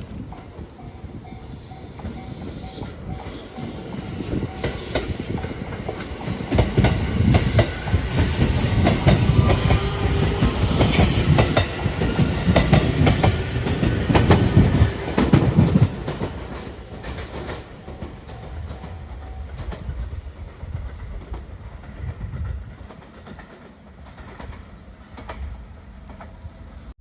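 Electric train passing at speed, wheels clicking rhythmically over the rail joints. It builds up, is loud for about ten seconds in the middle as the cars go by, then fades away.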